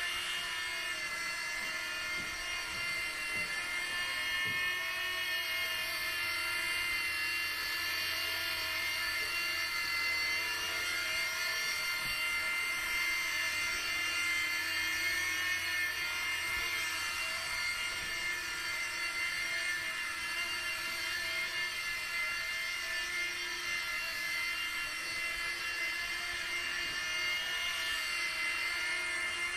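E-flite Blade mSR micro RC helicopter in flight: a steady high-pitched whine from its small electric motors and spinning rotor, the pitch wavering slightly as the throttle shifts.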